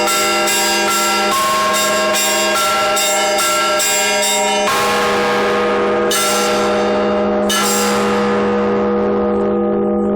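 Orthodox church bells being rung: small bells struck in a quick pattern, about three strikes a second, over the steady hum of a large bell. A little before halfway the quick strikes stop, and heavier strikes come about every second and a half, each left to ring and die away.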